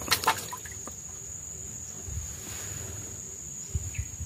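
Insects shrilling in one steady high-pitched drone, with a few clicks near the start and a few soft knocks near the end.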